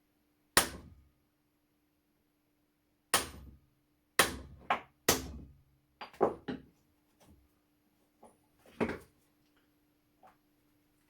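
A hammer tapping a steel pin punch to drive a stuck pin out of an old gun's lock or stock: about ten sharp knocks at an uneven pace, a few in quick succession.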